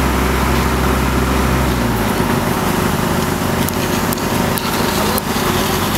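Engine running steadily, its low hum shifting about two seconds in, with a few faint clicks over it.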